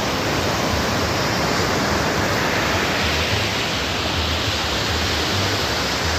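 Steady rush of wind and breaking surf, with irregular low rumbling from wind buffeting the microphone.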